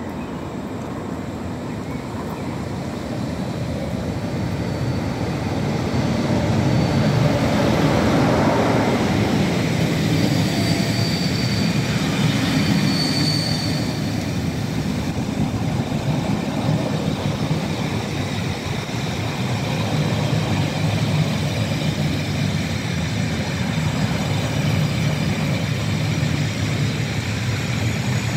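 A train hauled by a Class 47 diesel locomotive runs in at slowing speed, its engine loudest as it passes about a third of the way in. Passenger coaches then roll slowly by with a steady rumble and short brake squeals as the train slows to stop.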